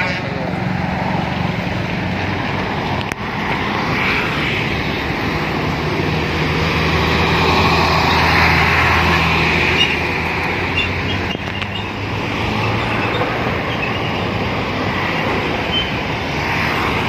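Garbage truck's engine running and driving off, its low hum swelling about midway and easing off again, over general traffic noise.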